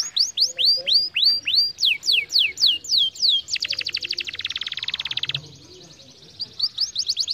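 Canary singing: a series of high notes that each sweep downward, about three a second, then a fast trill of rapid repeated notes. After a pause of about a second the sweeping notes return, quicker.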